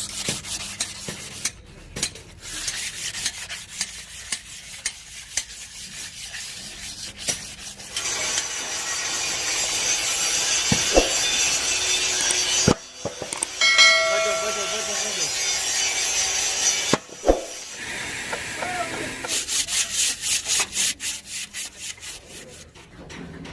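Hand scrubbing on metal with an abrasive, in repeated rasping strokes. About eight seconds in it turns into a steady hiss for about nine seconds, with a short metallic ring partway through, then goes back to quick back-and-forth strokes near the end.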